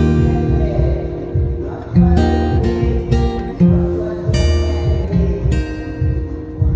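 Background music: acoustic guitar strummed and plucked over a steady bass.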